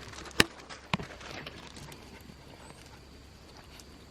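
Two sharp knocks about half a second apart, the first the louder, then only a faint steady background.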